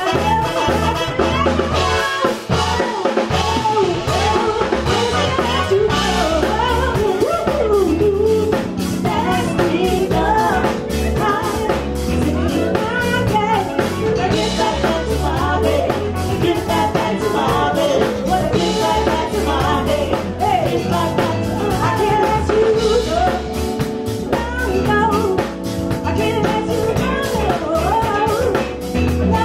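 Live soul band playing: a woman singing lead over electric bass, keyboard and a drum kit keeping a steady beat.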